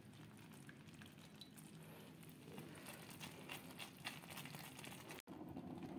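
Faint crackling and bubbling of thick jaggery syrup cooking in a pan on the flame, with small irregular ticks.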